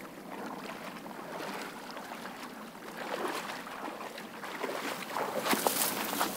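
Outdoor water ambience of splashing and lapping, with a stream of small crackles and rustles that grows louder and busier near the end.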